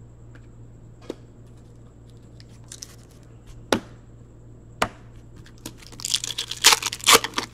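A foil trading-card pack being torn open and crinkled by hand: a few sharp clicks, then a quick run of tearing and crinkling about six seconds in.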